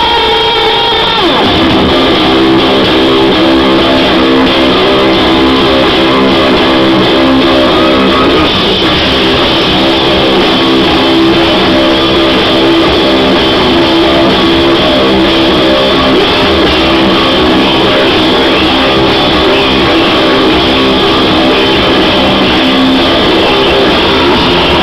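Live rock band playing loudly, with electric guitar to the fore and held chords, recorded with poor sound quality.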